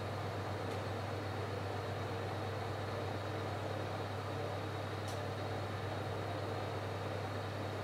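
Steady low electrical hum with an even hiss over it, like a running kitchen appliance. A faint tick sounds twice, just under a second in and about five seconds in.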